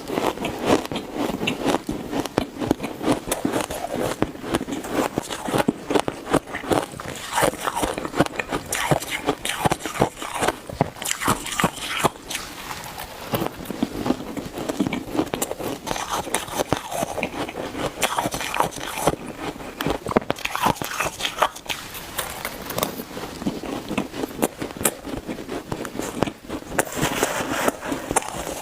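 Squeaky ice being bitten and chewed close to the microphone: a rapid run of crisp crunches and crackles, with a couple of short lulls between bites.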